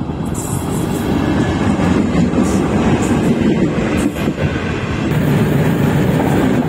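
Diesel-hauled passenger train passing close by: a steady heavy rumble of wheels on the rails with a few sharp clacks from the rail joints. The sound shifts about five seconds in as a second passing train takes over.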